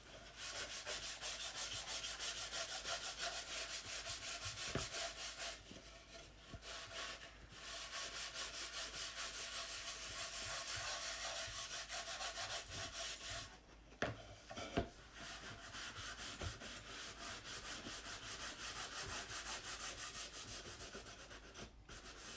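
Wood stain being rubbed onto and wiped off a wooden board by hand, in fast, even back-and-forth strokes. The wiping pauses briefly about six and about thirteen seconds in, and there are two light knocks just after the second pause.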